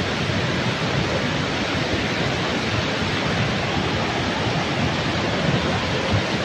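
Flash-flood torrent: fast, swollen stream water rushing in a steady, loud roar.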